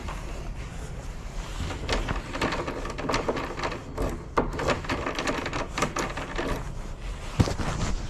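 Irregular clicks, taps and rattles of lock hardware and tools being handled, as a door lock is worked on and reassembled.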